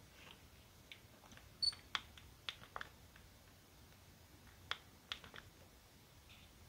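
Buttons on a Panasonic Lumix DMC-FZ300 camera body being pressed: a scatter of faint small clicks, with one short high beep about one and a half seconds in.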